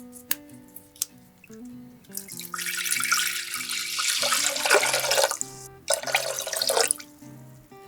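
Water running in a stream for about three seconds, a short break, then running again for about a second, over light background music.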